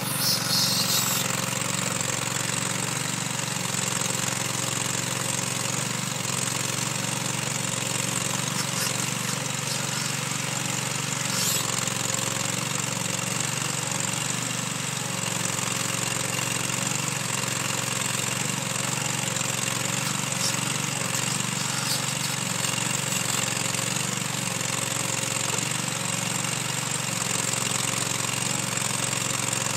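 Engine of a Ditch Witch Zahn R300 compact 4WD machine running steadily while its backhoe attachment is worked, with a few brief sharp clicks.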